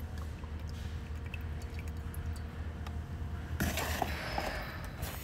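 Thin stream of used engine oil trickling into a plastic jug over a steady low hum. From a little past halfway, a burst of rustling handling noise.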